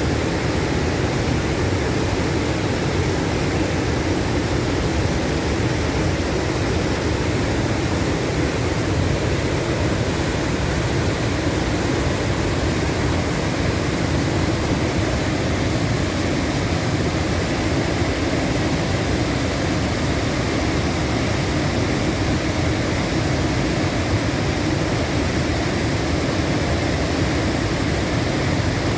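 Waterfall in spring melt, with high water raging over the falls: a steady, unbroken roar.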